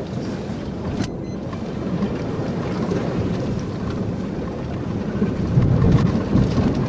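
Patrol car rolling slowly across a rough, grassy field: a dense low rumble and rustle that grows louder as the car gathers speed, with a brief click about a second in.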